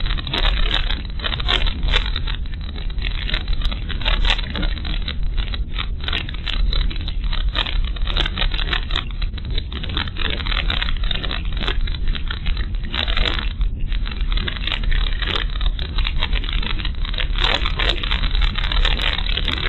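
Car driving over a rough unpaved road, heard through the dashcam inside the cabin: a steady low rumble of road noise with dense crackling and rattling over it.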